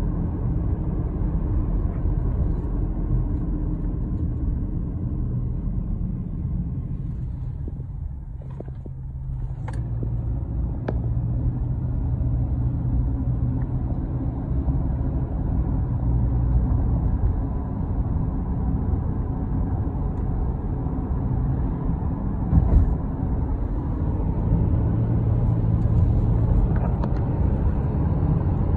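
Inside a moving car: steady low rumble of engine and road noise, easing off briefly about a third of the way through and then building again, with a few faint clicks.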